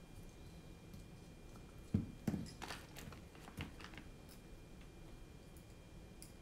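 Workbench handling noise from a carbon-fibre drone frame and hex driver on a silicone mat: two soft knocks about two seconds in, then a few light clicks over the next second and a half.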